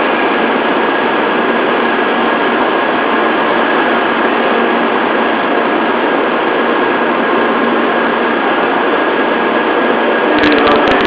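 Steady mechanical hum and hiss of a Sakura shinkansen train at Shin-Osaka, with a constant thin high tone over it. A few sharp clicks come near the end.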